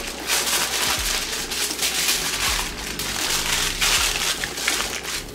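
Aluminium foil crinkling and crumpling in short repeated rustles as hands fold and press it around pork chops.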